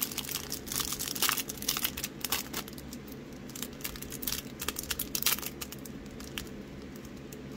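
Thin clear plastic wrapper crinkling and crackling as it is peeled off a trading card. The quick crackles come thick at first and thin out after about five and a half seconds.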